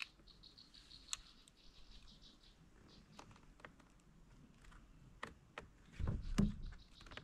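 Light clicks and knocks from a crappie being handled and laid out for measuring on a fishing kayak, with a louder spell of knocking about six seconds in. A faint, rapid, high chirping goes on in the background.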